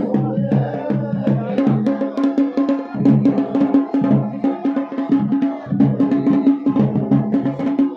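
Live Garhwali folk drumming, traditionally the dhol and damau that accompany Pandav Leela dancing: fast, dense rhythmic strokes over steady low held tones that break off briefly a few times.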